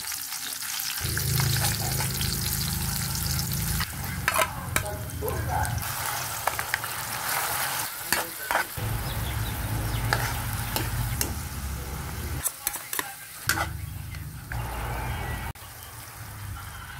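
Chopped garlic, shallots and carrot strips sizzling in hot oil in a metal wok, with a metal spatula scraping and clicking against the pan as they are stirred. The sizzle drops out briefly two or three times.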